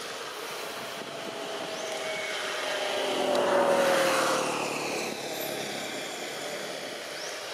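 A motor passing by, growing louder to a peak about halfway through and then fading, its pitch gliding down as it goes past.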